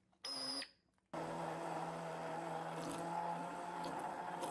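Electric blender run in a short pulse, then switched on and running steadily from about a second in.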